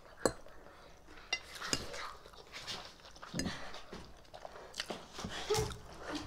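Metal forks clinking and scraping on ceramic plates of instant noodles in short scattered clicks, with noodles being slurped off a fork a few times.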